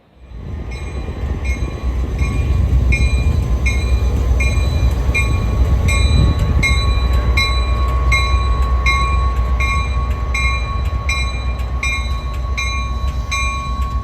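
Diesel locomotive, EMD F40PH, rumbling steadily with a bell ringing evenly about twice a second over a steady high tone. The sound swells in over the first second or two.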